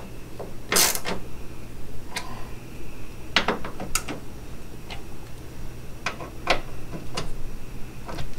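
Hand tools and stainless Allen-head fender bolts clicking and clinking against metal at a car's fender: about ten scattered sharp clicks, the loudest about a second in, over a steady low hum.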